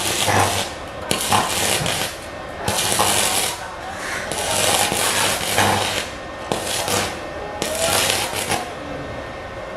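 Stick (MMA) arc welding with a Hujia MMA 250A inverter welder: the electrode arc crackles and sizzles in repeated spurts of about a second, breaking off and catching again as the rod is struck on a steel block.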